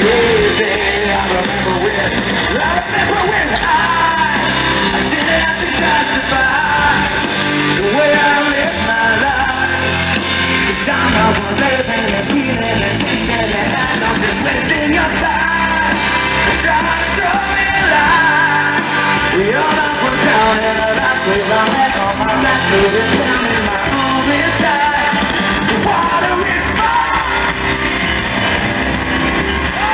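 A hard rock band playing live: distorted electric guitar, bass guitar and drums with a male lead vocal singing over them, loud and unbroken.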